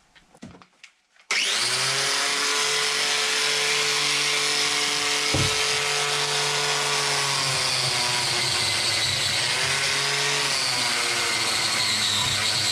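Angle grinder fitted with a wire brush, running against a welded steel-nut mask. It starts abruptly about a second in and runs steadily, its pitch dipping briefly a few times.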